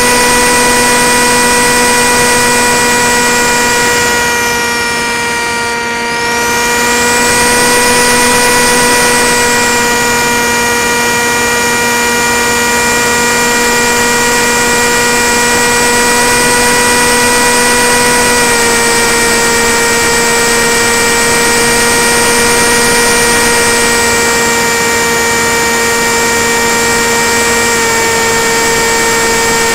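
Tek Sumo flying wing in flight, heard from its onboard camera: the Multistar Elite 2306 brushless motor and propeller running with a steady whine and wind rush. The sound dips briefly about five seconds in, then picks back up.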